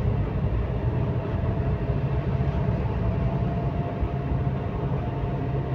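Steady road and engine noise from a car driving along a city street, a low even rumble with a faint steady hum.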